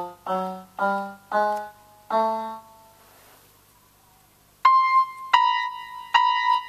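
Casio SA-65 electronic keyboard sounding notes as its key contacts are pressed. First come several single lower notes in turn, each fading out. After a short pause, higher notes are struck about once a second, and each press sounds a two-tone note: two adjacent keys' notes sound together from one key press, the recurring key-matrix fault of this keyboard.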